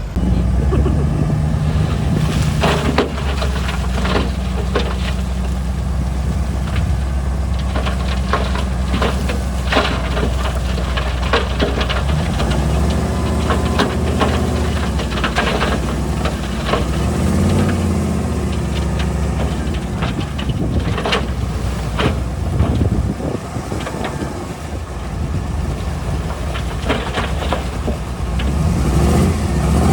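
Diesel engine of heavy earthmoving machinery running steadily under load, with rocks clattering and knocking against each other and against steel throughout. The engine note swells briefly about halfway through and again near the end.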